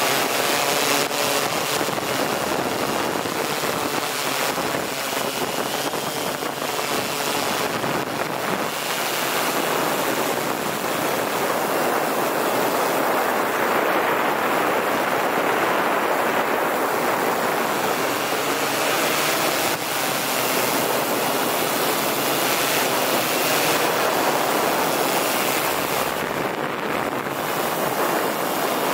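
M690L multirotor drone's propellers and motors running in flight, heard from the onboard camera as a steady rushing noise mixed with wind on the microphone.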